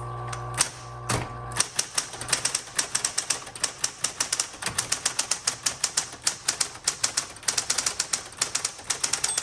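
Smith Corona Coronomatic Super 12 electric typewriter being typed on. A couple of single keystrokes come first, then from about a second and a half in a fast, steady run of typebar strikes, over the low hum of the typewriter's motor.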